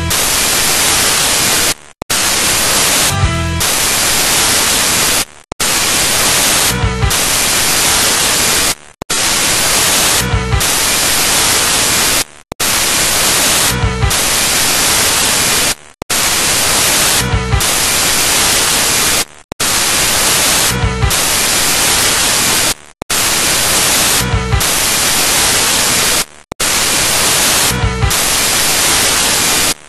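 Loud static hiss running in a repeating loop about every three and a half seconds. Each cycle has a brief dropout and a low thud.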